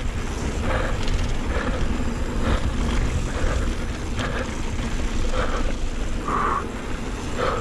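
Steady wind and trail rumble of a full-suspension mountain bike on a downhill run, close to a chin-mounted camera, with the rider's heavy breathing about once a second.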